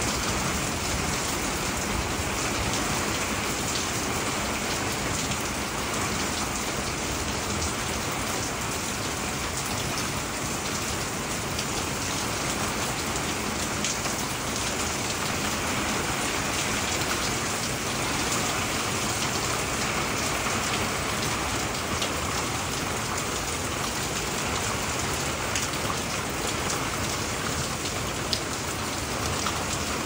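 Steady rain falling on a shingled roof and broad leaves, an even rushing patter with scattered sharper drop ticks.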